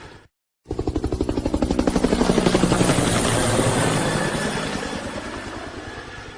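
Helicopter notification ringtone: a recorded helicopter's rotor chopping in rapid beats. One play fades out just after the start. After a brief silence it plays again, swelling to a peak and then fading away like a passing fly-by.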